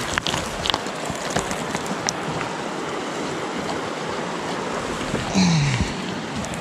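Mountain stream running steadily below, with a few sharp clicks and scrapes in the first second of hands and boots on loose rock during a climb. About five seconds in comes a short grunt of effort that falls in pitch.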